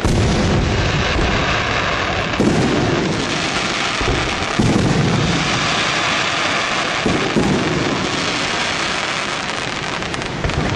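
Fireworks shells bursting in deep booms, several in a row about every two seconds, over a steady rushing roar of water from the Rhine Falls waterfall.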